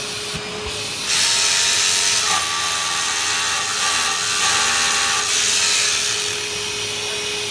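Hilti drill in a quick-pull drill press boring a hole for about four seconds, starting about a second in, over the steady whine of a vacuum dust-collection attachment drawing off the dust.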